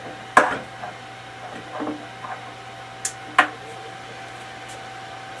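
Two sharp metallic clanks about three seconds apart, with a few softer knocks between, as the lid of an Anvil Foundry all-in-one electric brewing kettle is handled. A steady low hum runs underneath.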